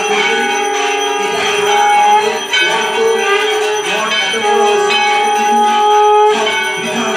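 Temple hand bells ringing continuously during aarti: a steady, dense jangle with long held notes over it.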